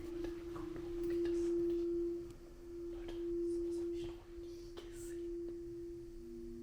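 A steady, pure humming tone that swells louder twice and eases back, with a second, lower tone joining near the end and a few faint clicks.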